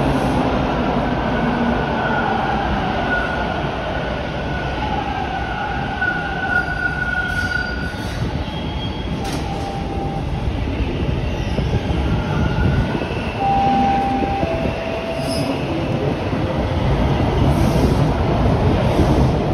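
Bombardier T1 subway train moving along the station track: a steady rumble of wheels and running gear, with wheel squeal coming and going as thin high tones, strongest in the first half.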